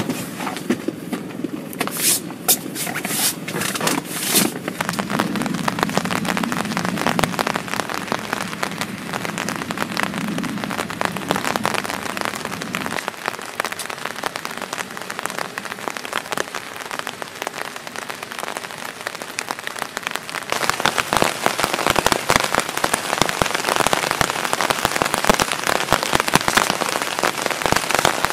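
Heavy rain pattering on a tarp overhead, a dense, even spatter of drops that grows louder about two-thirds of the way through. A few sharp knocks sound two to four seconds in.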